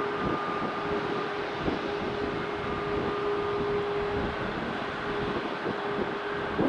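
Rolls-Royce Trent 500 jet engines of an Airbus A340-500 running: a steady rushing noise with a steady whine in two tones, the higher one fading about a second in.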